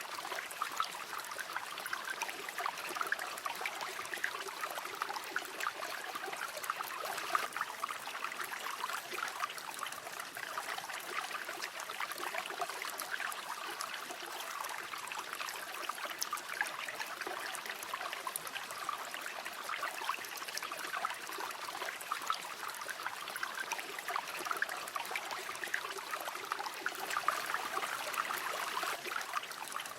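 River water flowing over stones, a steady babbling of many small splashes and trickles.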